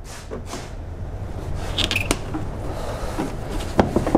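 Pliers working a tight spring hose clamp on a rubber radiator hose: scattered metal clicks and scraping, with a few sharp clicks about two seconds in and near the end, over a low steady hum.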